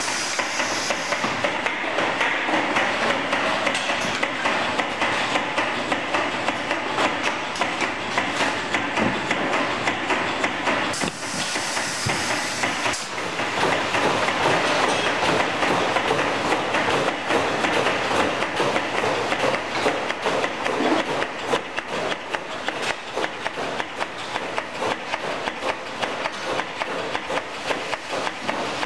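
Inline filling machine running: its pneumatic fill heads and conveyor keep up a steady mechanical clatter of rapid clicks, with short bursts of hiss at the start and again about eleven seconds in.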